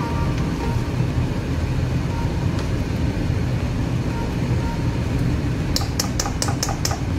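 Spatula knocking about six times in quick succession on the rim of a metal wok near the end, over a steady low rumble that runs throughout.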